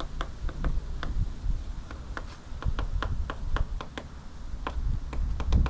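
Woodpecker pecking at a shed's wooden side wall: a run of sharp, irregular taps, about three or four a second.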